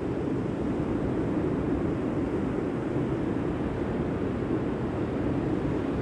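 Ocean surf and wind at the shore: a steady low rush of noise with no single wave crash standing out.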